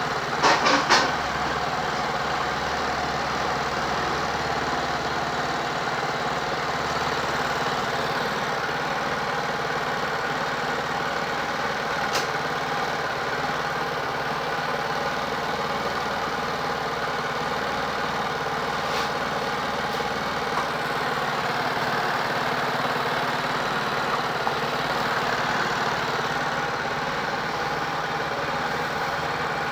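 Steady machine hum, with three sharp clicks about half a second in and a couple of faint single clicks later.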